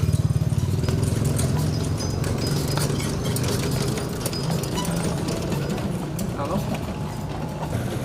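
Street noise: an engine running with a steady low hum that is strongest for the first two seconds and then fades, amid background voices and scattered clicks and clatter.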